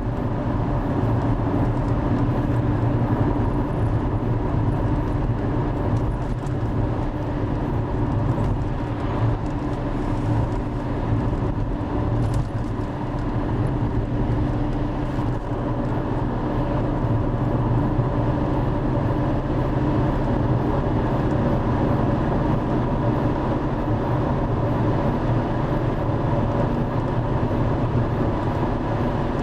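Driva river in major flood: a steady, unbroken roar of fast, high water with a deep rumble underneath.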